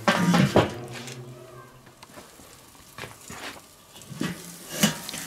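Enamelled steel lid of a Weber kettle grill clattering down onto the bowl, ringing briefly, then burgers sizzling faintly under the closed lid, with sharp knocks of the lid handle near the end.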